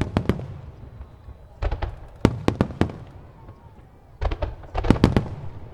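Aerial firework shells bursting: three quick volleys of sharp bangs about two seconds apart, each with a rumbling echo trailing after.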